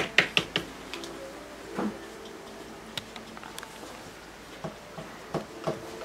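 Quick taps and dabs of a paintbrush on stretched canvas as oil paint is stippled on in short grass strokes: a quick run of taps in the first half-second, then a few scattered ones near the end.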